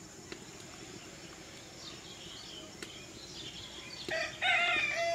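A rooster crowing near the end: one loud, drawn-out call of about a second and a half, after faint, high bird chirps.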